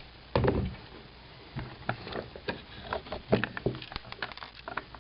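Hand handling of a Mossberg .22 rifle's polymer stock parts and screws on a bench: a knock about half a second in, then a run of light, irregular clicks and taps.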